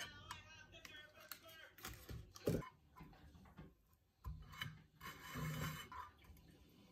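Quiet kitchen handling sounds of utensils on a non-stick frying pan while toast is turned with tongs: scattered light clicks and scraping, with one sharp clack about two and a half seconds in and a rustling scrape around five seconds in.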